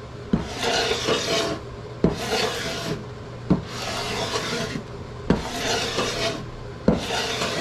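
A Stanley No. 82 cabinet scraper fitted with a carbide-edge utility blade being pulled across a laminated wooden board, about five scraping strokes roughly a second and a half apart, each starting with a sharp knock as the blade bites.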